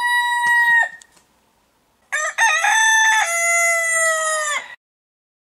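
Rooster crowing twice: a short call at the start, then a long crow in several parts about two seconds in that falls in pitch at its end and cuts off suddenly.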